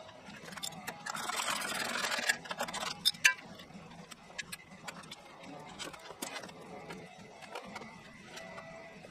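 Small metal parts being handled during hand assembly of a band sawmill: scattered clicks and ticks of bolts, nuts and tools. About a second in there is a brief rustling burst, and a few sharper clicks follow about three seconds in.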